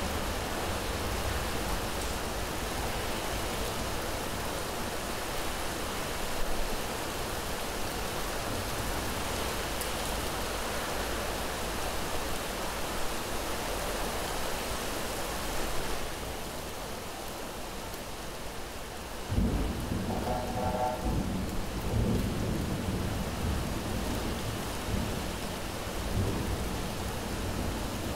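Steady heavy rain with deep rolling thunder. About two-thirds of the way through the rain's hiss softens, then a fresh rumble of thunder breaks in suddenly and rolls on.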